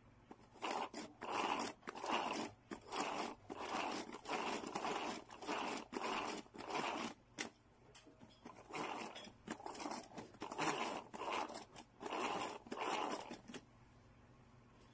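Hand-pressed food chopper worked by pushing its plunger again and again, each push giving a short noisy burst from the blades spinning in the bowl, roughly one a second, stopping near the end.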